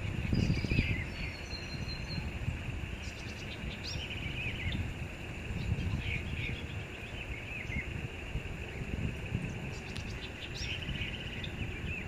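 Wild birds calling in scattered short chirps and quick falling notes over a steady, high insect drone. A low rumble sits underneath.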